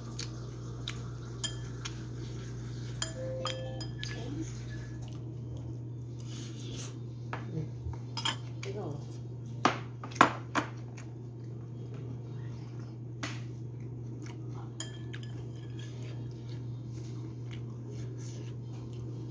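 A metal spoon scraping and clinking against a nonstick pan while scooping fried rice, in scattered short clicks, loudest in a quick run of three about ten seconds in, over a steady low hum.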